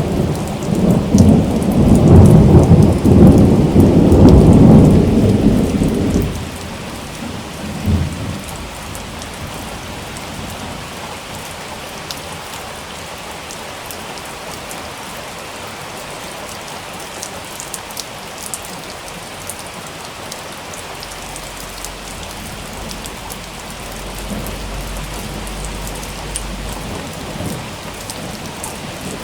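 Heavy steady rain with a loud rumble of thunder through the first six seconds and a shorter clap about eight seconds in, then rain alone with a faint distant rumble near the end.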